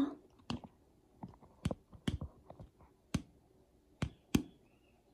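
Plastic action figure's feet tapping on a tile floor as it is hopped along by hand: about a dozen short, sharp clicks at uneven intervals.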